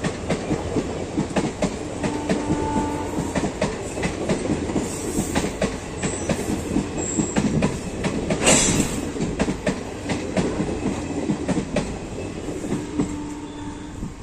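Sleeper-class passenger coaches running past at speed, their wheels clattering with rapid clicks over the rail joints. There is a brief thin wheel squeal about two seconds in and again near the end, and a louder rush about eight and a half seconds in. The sound begins to fall away as the last coach passes.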